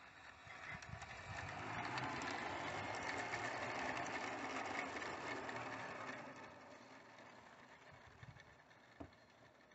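A 16mm-scale garden railway model locomotive pulling tipper wagons over the track: its motor and gears running and its wheels rolling on the rails, growing louder as it passes close and fading away about six seconds in. A single knock near the end.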